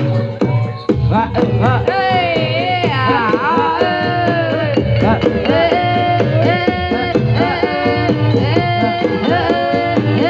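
Jaranan accompaniment music: hand drums beating a steady rhythm, with a high, wavering melody sung or played over it from about a second and a half in.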